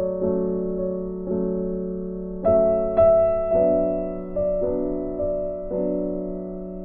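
Background music: gentle piano chords, each struck and left to fade, a new one about every second.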